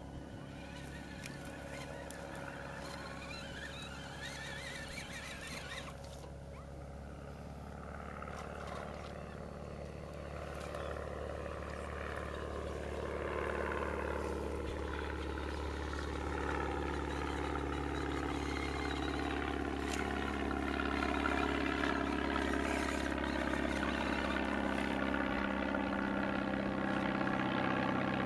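Steady engine drone that grows gradually louder.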